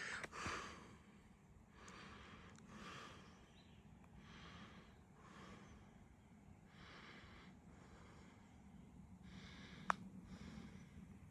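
A person breathing hard after a steep hike, faint and rhythmic at about one breath a second. There is a single sharp click near the end.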